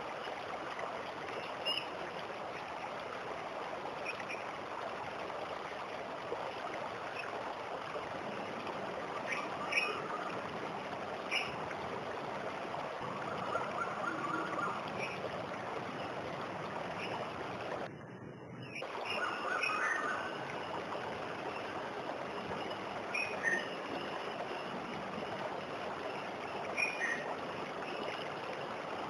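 Waterfall water rushing steadily, with brief bird chirps now and then. The sound dips and briefly cuts out about two-thirds of the way through.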